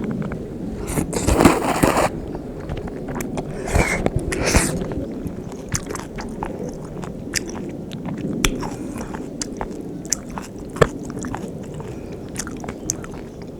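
Someone eating bibim-guksu (cold spicy mixed noodles): chewing and biting close to the microphone, with two longer noisy surges about one and four seconds in and scattered small clicks of the mouth and utensils.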